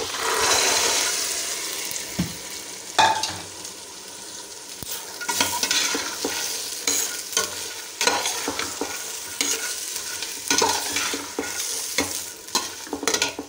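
Chickpeas going into hot, sizzling onion-and-spice masala in a steel pot, with a loud surge of sizzling at first. Then a metal slotted spoon stirs and scrapes against the pot in repeated strokes while the masala keeps sizzling, as the chickpeas are fried (bhuna) in it.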